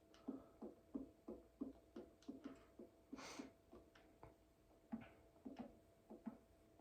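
A person hiccuping over and over in quick, short hics, about three a second, with a breath drawn about halfway through.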